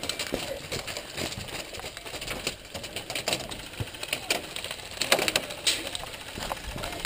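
Irregular sharp clicks and rattles from an airsoft player moving on foot with his rifle and gear, with a cluster of louder clicks about five seconds in.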